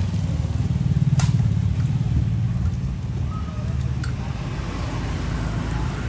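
Low rumble of a vehicle engine running, swelling about a second in and easing off, with a single sharp click about a second in.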